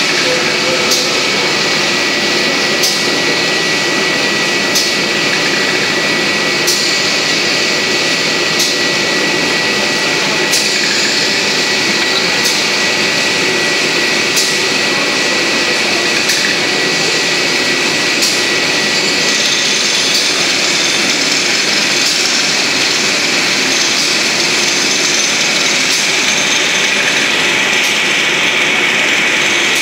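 XGJ850 sawdust pellet mill running steadily under load while pressing wood pellets: a dense, loud mechanical noise with a thin steady high whine, and a sharp tick about every two seconds.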